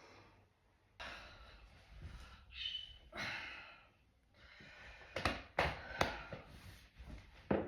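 A person sighing and breathing out heavily several times, then a few sharp clicks or taps near the end.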